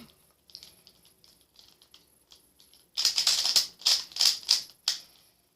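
Plastic Pyraminx puzzle being twisted by hand: faint scattered clicks for the first few seconds, then about two seconds of fast, dense clacking as its pieces are turned.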